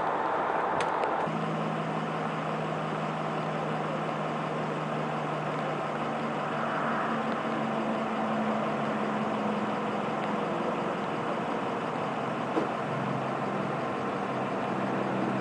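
A large vehicle's engine idling steadily at a truck crash scene, with a constant hum of background noise.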